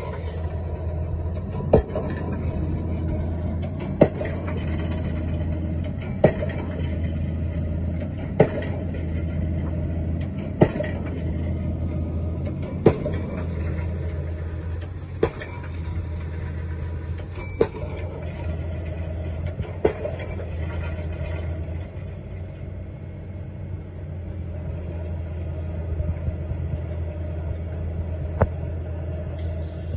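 Pile driver's hammer striking a pile about every two seconds over the rig's steady engine drone; the blows stop for several seconds near the end, then one more falls.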